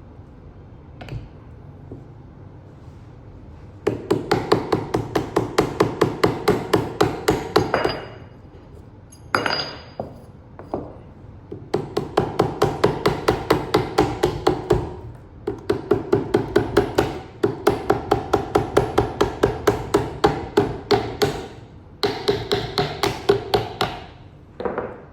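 Rapid hammer-like tapping on a hard part, about five blows a second, in runs of three to four seconds with short pauses between. A brief high ringing ping comes near the middle.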